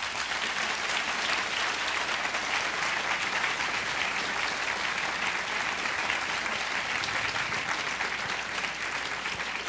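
Audience applauding, a dense, steady clapping at the end of a talk.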